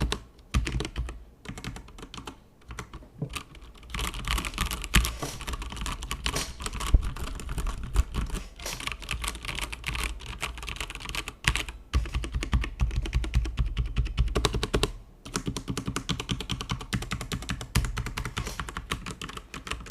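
Fast, continuous typing on a stock Tecware Phantom RGB mechanical keyboard with pre-lubed Outemu Brown tactile switches: a dense run of key clacks with a few short pauses.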